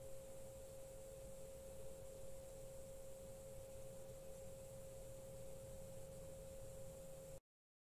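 Faint steady whine at a single pitch over low background noise, cutting off abruptly into dead silence near the end.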